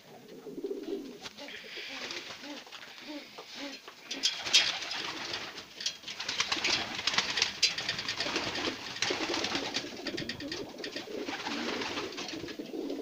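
Domestic pigeons cooing inside a wooden loft, with louder rustling, scraping and scattered knocks over most of the clip; the sharpest knock comes about four and a half seconds in.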